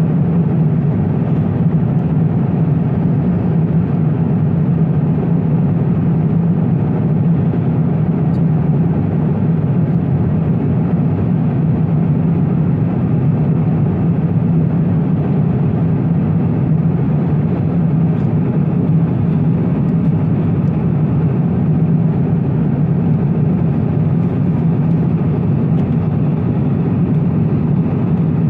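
Steady low rumble of a jet airliner's cabin in flight, even and unbroken.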